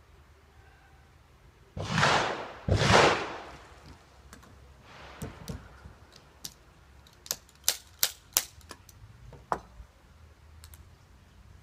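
A ramrod is driven hard down the barrel of a Feinwerkbau History No.1 underhammer muzzle-loading pistol to seat the charge, in two loud strokes about a second apart. It is followed by a softer scrape and then a run of sharp metallic clicks as the ramrod is drawn out and the pistol is handled.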